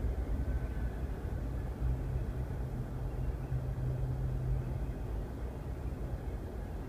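Double-stack container freight train rolling past, a steady low rumble heard muffled from inside a car's cabin.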